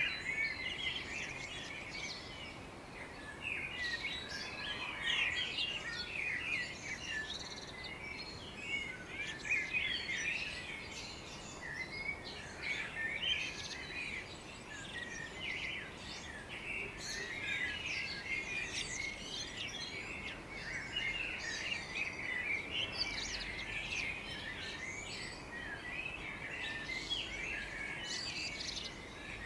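Several garden birds chirping and singing at once in a morning chorus: many quick, overlapping high chirps and trills, with no pause in the song.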